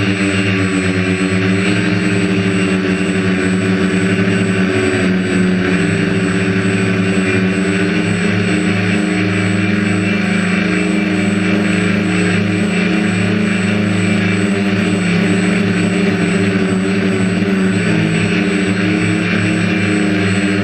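Quadcopter's propellers and motors whirring steadily, the pitch of the hum shifting slightly now and then as the drone flies.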